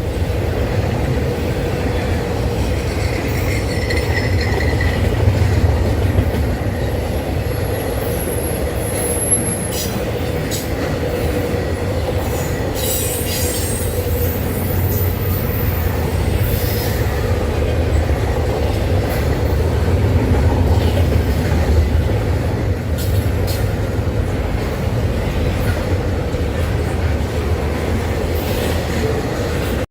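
Freight train cars rolling past in a steady low rumble, with brief high wheel squeals about eight seconds in and occasional clanks.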